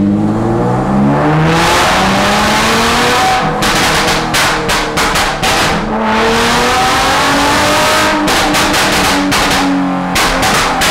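Nissan 370Z's 3.7-litre V6 revved hard several times, its pitch climbing and dropping, with rapid pops and crackles from the exhaust as the revs fall: an attempt to make the remapped engine spit flames from the exhaust.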